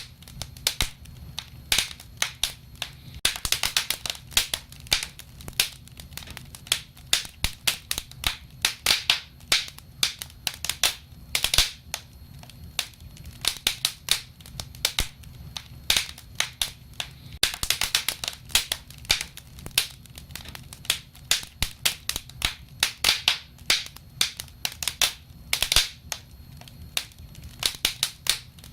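Wood fire crackling: irregular sharp pops and snaps, clustered in quick runs, over a low steady rumble.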